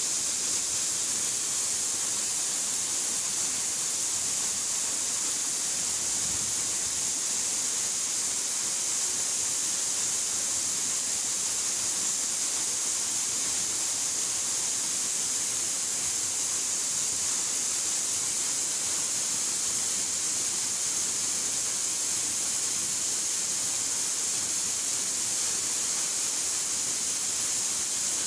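Waterfall pouring into a rock pool: a steady rushing hiss that does not change.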